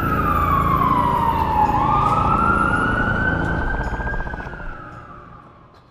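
An emergency-vehicle siren wailing: the pitch sweeps down, climbs back up about two seconds in, then sinks slowly as the sound fades out over the last second and a half, over a low rumble.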